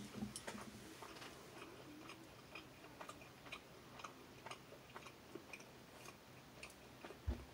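Faint chewing of an overly large mouthful of chewy pretzel-crust pizza, mouth closed: soft irregular clicks about twice a second, with a low thump near the end.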